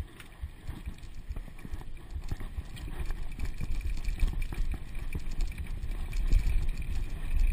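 Downhill mountain bike rolling down a dirt track: tyres rumbling over the dirt and the bike rattling over bumps, with wind buffeting the bike-mounted microphone. The rumble grows steadily louder as the bike picks up speed.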